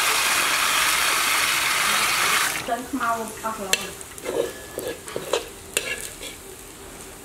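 Tap water pouring into a steel bowl as greens are swished in it, loud and steady, stopping abruptly about two and a half seconds in. It gives way to a quieter wok frying over a fire, with the clicks and scrapes of a spatula stirring.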